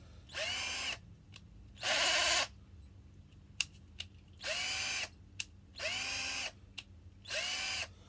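Parkside PBSA 12 C2 12-volt cordless drill driver run off load in five short trigger pulls, its motor and gearbox whirring up quickly to a steady pitch and stopping each time. A few sharp clicks fall between the later runs.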